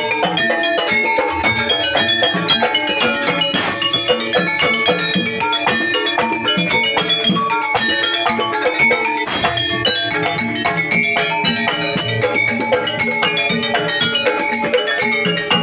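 Live jaranan ensemble music: drums and struck tuned percussion playing a dense, continuous rhythm of many quick notes.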